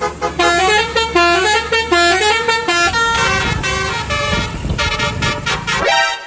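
Basuri bus telolet horn, a multi-note air horn, playing a quick tune of short notes that step up and down in pitch several times a second. It stops just before the end.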